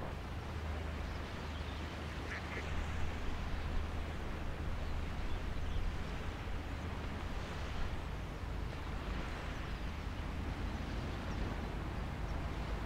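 Steady low rumble and wind noise, with a few short, faint duck-like bird calls; the clearest comes about two seconds in.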